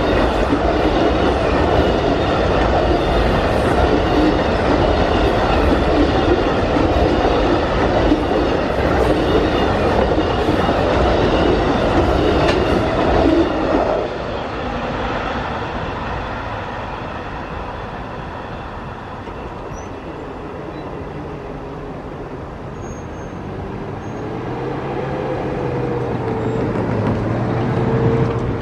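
Amtrak Auto Train's bi-level auto-carrier cars rolling past at speed, a loud steady rumble and clatter that drops off abruptly about halfway through as the last car clears the crossing. Quieter after that, until road traffic builds up approaching near the end.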